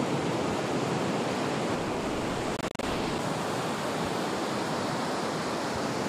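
Ocean surf breaking and washing up a sandy beach, a steady rushing noise that breaks off for an instant a little under three seconds in.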